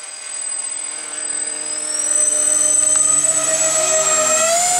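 Electric ducted fans of an RC C-141B Starlifter model jet whining as the plane flies in low. The whine grows louder over the first two seconds, stays loud as it passes close overhead, and rises in pitch near the end as the throttle comes up.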